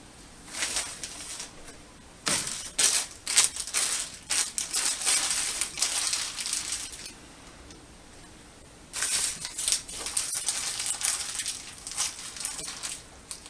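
Crackling, crinkling handling noise in irregular spells: a short one near the start, then two longer stretches of several seconds each with a quiet gap between them.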